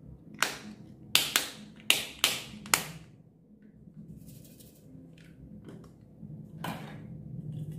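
Sharp clicks and taps on a hard plastic makeup palette case as it is handled, six quick ones in the first three seconds. A few fainter taps and a softer rustle follow later on.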